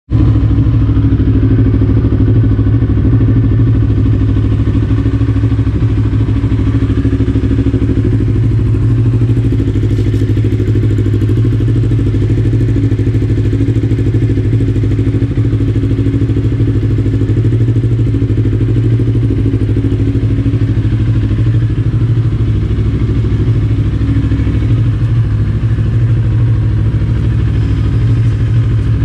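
CFMOTO NK400 motorcycle engine running steadily at an even, unchanging pitch through an Akrapovic full exhaust system.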